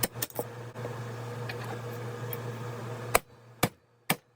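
A steady hum cuts off about three seconds in, followed by sharp taps about two a second: a hammer knocking an old bearing out of a STIHL MS460 chainsaw crankcase half.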